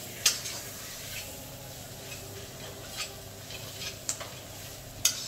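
Metal spatula stirring and scraping onions and spices in an iron kadhai, with several sharp clinks of the spatula against the pan, the loudest just after the start. A faint sizzle of the masala frying in butter sits underneath.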